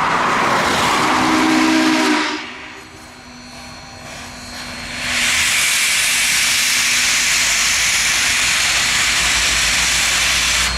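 Union Pacific 844, a 4-8-4 Northern steam locomotive, hissing loudly and steadily with escaping steam as it rolls slowly in. The hiss sets in about five seconds in, after a short low tone and a quieter lull.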